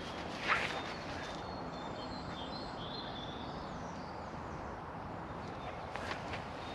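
Small birds chirping over a steady outdoor hiss. A single crunching footstep comes about half a second in, and faint steps return near the end.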